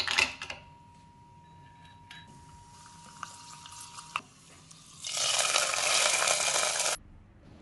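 Cashews dropped into hot ghee in a small pan give a short sharp sizzle, then fry with a quiet fizz. About five seconds in, the hot ghee and cashews go into the pot of sweet pongal and sizzle loudly for about two seconds, cutting off suddenly.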